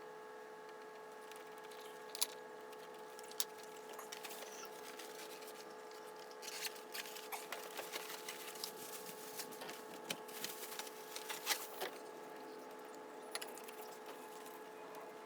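Wood fire of scrap SPF lumber crackling, with irregular sharp pops that come thickest in the middle, over a faint steady hum.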